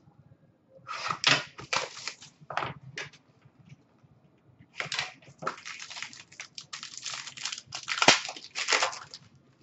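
A sealed cardboard trading-card box being cut open with a box cutter and torn open: scraping, tearing and crinkling of the plastic wrap and cardboard in two spells, about a second in and again from about five seconds on.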